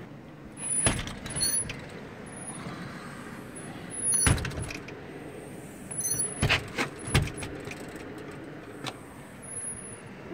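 Metal storm door being pushed open against a snow drift: several sharp knocks and rattles, about a second in, around four seconds, and twice between six and seven seconds, with short high squeaks from the door hardware.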